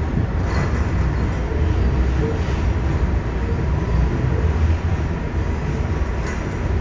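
R188 subway car in motion, heard from inside the car: a steady low rumble of the train running, with a faint steady high tone above it.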